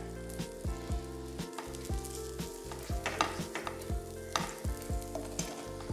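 Butter sizzling as it melts in a hot non-stick frying pan, stirred and spread with a silicone spatula that scrapes across the pan in short, irregular strokes. A steady low hum runs underneath.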